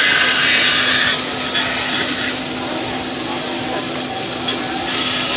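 Bandsaw running with a steady hum, with bursts of rasping, scraping wood noise, loudest in the first two seconds and again near the end.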